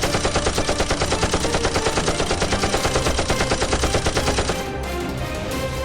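A rapid burst of automatic gunfire, about a dozen shots a second, lasting about four and a half seconds and stopping suddenly, over background music.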